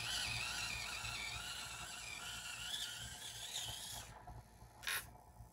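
Axial SCX24 mini crawler driving in a tight turn: its small electric motor and worm-gear axles give a wavering high whine that fades as the truck moves away and stops about four seconds in. A single faint click near the end.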